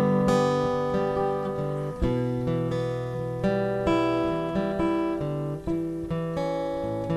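Acoustic guitar strumming chords, a fresh strum about every second, with no singing.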